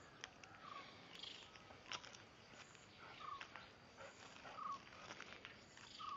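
A faint, short animal call repeating several times at intervals of about a second or more, with scattered soft clicks.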